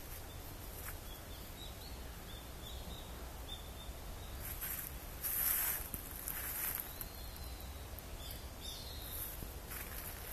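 Footsteps crunching through dry fallen leaves, a few steps in the middle with the loudest just past halfway, and more near the end, over a low steady rumble on the microphone. Faint short high bird chirps come and go.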